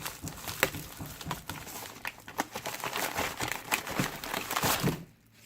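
A shipping package being opened by hand: irregular rustling and crinkling of packaging with sharp clicks and crackles. It stops about five seconds in.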